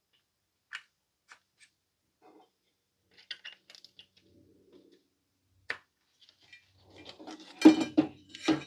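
Handling noise from a monitor circuit board and its wiring harness being fitted into a CRT monitor chassis: scattered light clicks and taps of connectors and wires, then a louder run of knocks, rattles and scraping near the end as the board goes into place.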